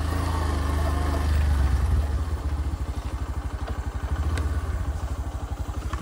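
Motorcycle engine running at low speed while pulling uphill, with a steady pulsing firing beat, a little louder in the first two seconds.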